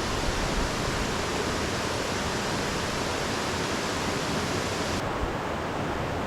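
Steady rush of water falling at a large waterfall, an even noise with no break.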